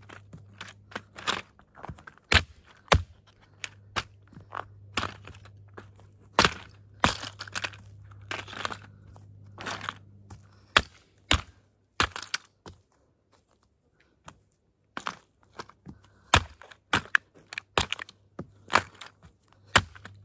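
A toy Grave Digger monster truck being crushed: a long run of sharp cracks and crunches as it breaks apart, with a pause of a second or two just past the middle.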